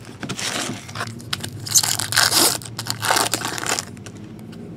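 Trading-card pack wrapper being torn open and crinkled, in several rustling, crackly bursts that die down near the end.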